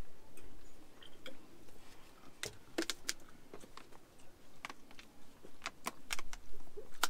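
Irregular sharp clicks and crackles of people eating at a table, with a plastic water bottle handled and drunk from.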